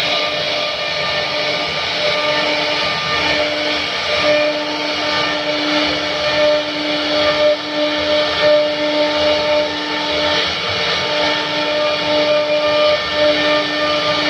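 CNC machine running, its spindle giving a steady whine that dips briefly now and then, over a continuous noise from the cutting.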